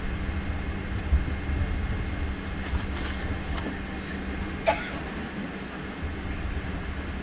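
Cabin noise of a McDonnell Douglas MD-83 taxiing: a steady low rumble and hum with light hiss, heard from inside the cabin. A couple of short knocks or rattles come through, one about a second in and a stronger one a little past the middle.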